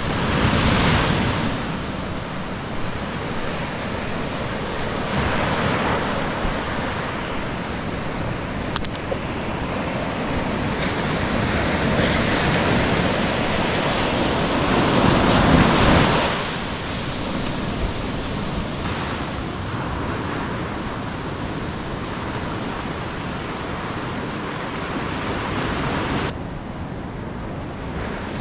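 Ocean surf breaking and washing onto a beach, a steady rush that swells with each wave; the biggest wave comes about fifteen seconds in.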